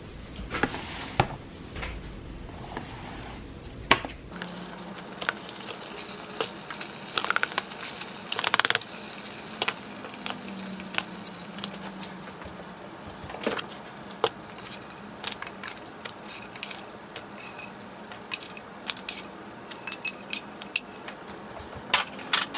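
Kitchen cooking sounds: scattered clicks and clinks of utensils and dishes over a steady low hum, with a brief sliding tone partway through.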